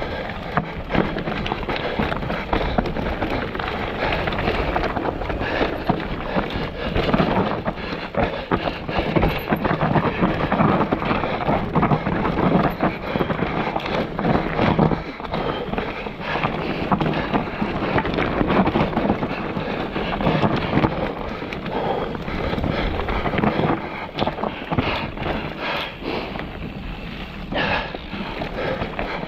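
Mountain bike riding down a rough, rocky trail: continuous tyre and drivetrain noise with frequent knocks and rattles as the bike hits rocks, and wind on the microphone.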